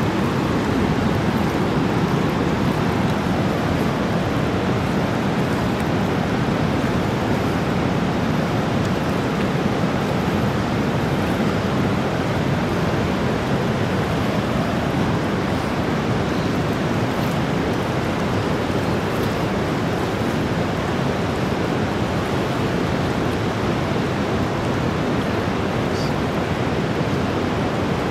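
Whitewater rapids of the upper Niagara River rushing in a steady, unbroken roar of water.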